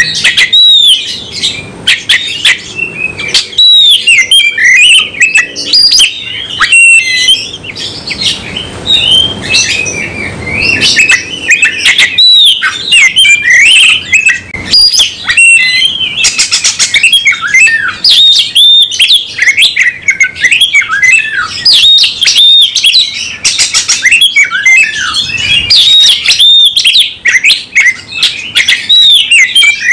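Oriental magpie-robin singing hard and without a break in a fighting mood: a fast, varied run of loud whistles and notes sliding up and down, with a short lull about a third of the way through.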